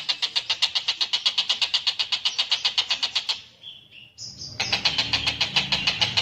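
Tengkek buto kingfisher giving its rapid rattling call, about ten sharp high notes a second. The rattle breaks off about three seconds in, leaving a few separate short notes, and starts again about a second later over a low hum.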